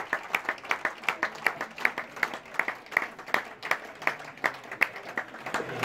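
Spectators applauding: a scattered round of hand claps, several a second, with single claps standing out.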